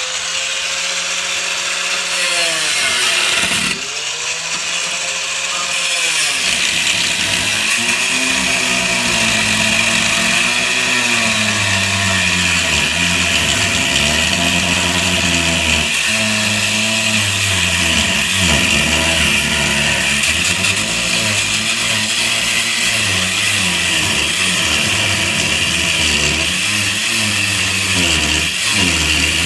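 Angle grinder with a cut-off wheel cutting through steel, running loud and steady with a gritty hiss. Its motor pitch repeatedly sags and recovers as the wheel is pressed into the metal.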